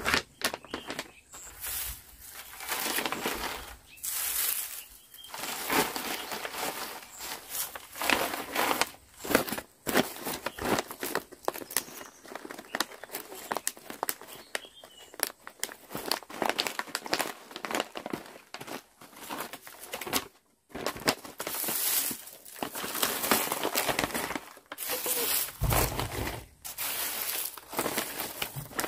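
Plastic and foil pouches crinkling in irregular bursts as they are handled and filled by hand with dried tea leaves, which rustle and crackle as they go in.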